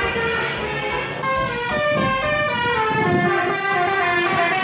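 Indonesian "telolet" bus horn playing a multi-note tune, several horn tones sounding together, changing pitch and gliding about midway.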